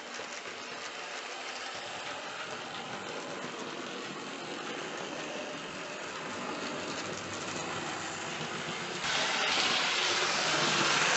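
Hornby OO-gauge model LMS Coronation Class locomotive, Duchess of Sutherland, running along model railway track: a steady electric motor and wheel-on-rail noise that gets suddenly louder about nine seconds in.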